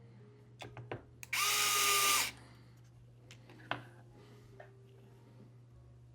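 Small electric screwdriver spinning for about a second with a steady whine, driving a screw into the remote controller's parts. A few sharp clicks of small parts come just before it and one more comes after.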